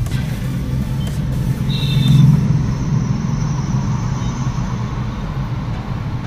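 Road and engine noise inside a moving car's cabin: a steady low rumble that swells briefly about two seconds in.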